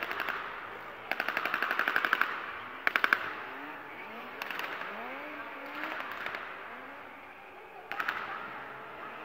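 Staged machine-gun fire effects in an arena stunt show. One rapid rattling burst lasts about a second, followed by several short bursts spaced out, with car engines revving between them.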